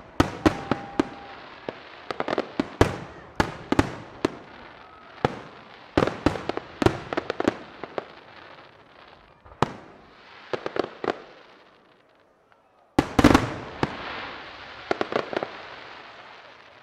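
Aerial firework shells bursting in quick clusters of sharp bangs, with a fizzing hiss between them. There is a short lull about twelve seconds in, then one large burst.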